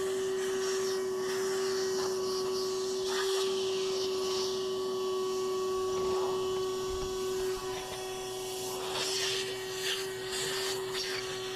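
Shop vac running with a steady whine, its nozzle sucking built-up dirt and grit out of a sliding door's track, with irregular scraping and rattling as it works along the groove.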